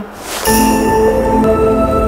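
A short whooshing swell, then background music of held, chiming notes that comes in about half a second in.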